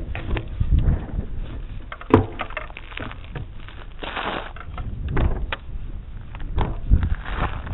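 Wind buffeting the microphone of a camera mounted on a model airplane, with scattered knocks and rattles as the model is moved about, the loudest knock about two seconds in. No engine is heard running.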